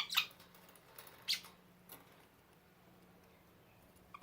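Budgerigar making a few short, sharp angry popping noises, a budgie's threat sound when it is mad, all within the first two seconds.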